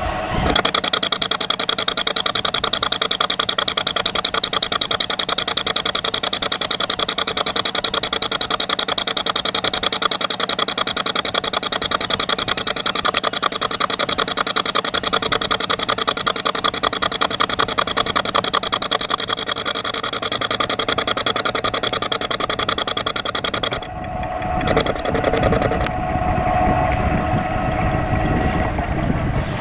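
Metal lathe turning the corners off a square-edged bronze block: a loud, fast, evenly repeating clatter with a high ring as the tool meets the corners in an interrupted cut. About 24 seconds in the cutting sound stops suddenly and the lathe runs on with a lower steady hum.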